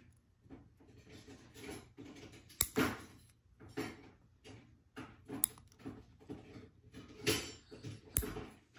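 Irregular clicks, taps and rustles of small objects being handled, with a few sharper clicks.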